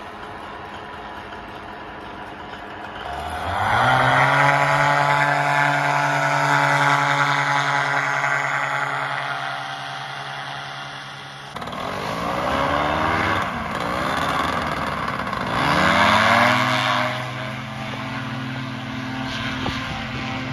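Paramotor engines and propellers throttling up to full power for foot-launched take-offs. At first the engine ticks over, then about three seconds in the pitch climbs steeply and holds at full throttle. After a sudden change near the middle, another engine's revs rise and fall before climbing back to full power and holding.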